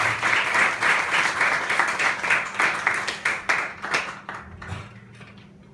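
Audience applauding after a song, the clapping thinning out and stopping about four and a half seconds in.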